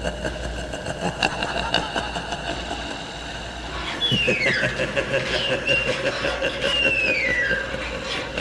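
Steel blades of a clawed glove screeching as they scrape along metal walls: two long screeches that slide down in pitch, in the second half, over a steady low hum.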